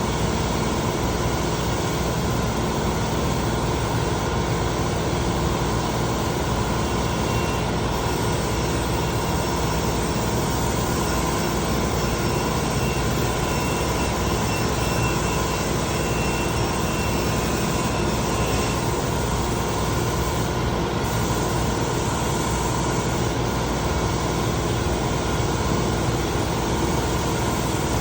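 Spray-finishing equipment running: a steady, unbroken machine drone.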